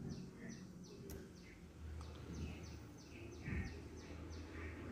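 Faint background of a small bird chirping over and over, short high falling chirps about three a second, over a low steady hum.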